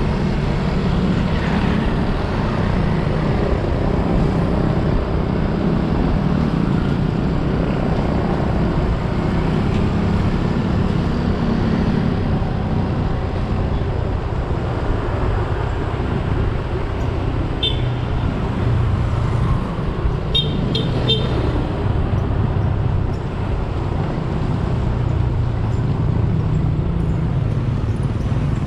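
Steady wind rush and low rumble on the microphone of a camera moving with a bicycle down a rough road. A short high beep sounds about two-thirds through, then three quick beeps a few seconds later.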